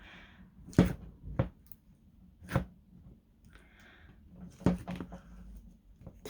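Hands playing with a thick slime: several sharp pops and clicks at irregular intervals, with soft squishing sounds between them.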